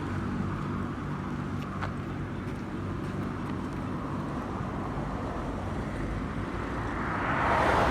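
Road traffic with a vehicle engine running steadily; near the end a vehicle passes close, its noise swelling louder.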